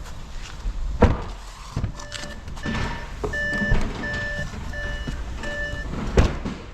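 Electronic beeper sounding about five evenly spaced beeps, roughly one and a half a second, with a sharp thump about a second in and another near the end.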